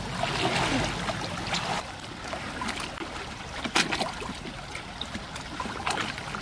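Muddy ditch water splashing and sloshing as a man wades and dips a plastic tub into it to fill it, with a single sharp knock a little under four seconds in.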